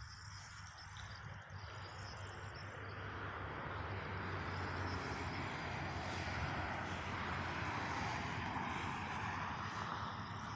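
A steady engine drone that grows louder over the first few seconds, then holds.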